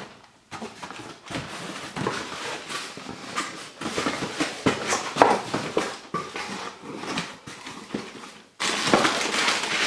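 Cardboard packaging being handled: a small box slid out and its flaps opened, with irregular scraping and light knocks. About a second before the end, a plastic bag starts crinkling loudly.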